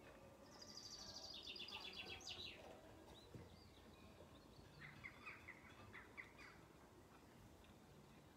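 Faint songbird song: a quick run of notes falling in pitch over the first couple of seconds, then a shorter series of lower notes around the middle, over a faint background hiss.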